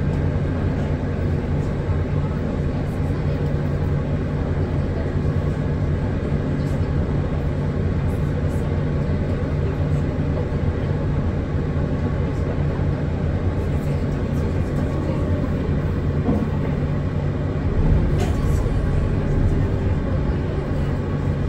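On-board running sound of a Hino Blue Ribbon City Hybrid city bus: a steady low engine and road hum, with a low rumble swelling briefly near the end.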